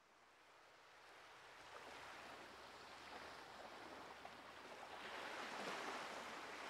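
Faint outdoor ambience, a steady rushing hiss with no distinct events, fading in about a second in and slowly growing louder.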